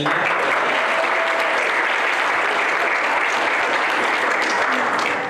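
A congregation applauding, a steady mass of clapping that starts suddenly and stops about five seconds later.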